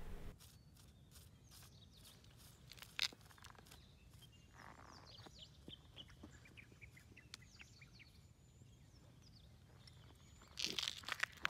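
Faint outdoor ambience with birds chirping, broken by a few light clicks and scrapes and a louder cluster of them near the end.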